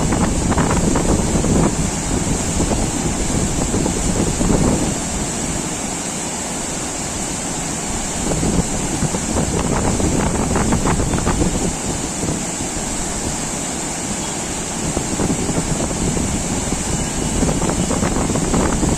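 Heavy floodwater rushing steadily, with wind buffeting the microphone and a constant high hiss.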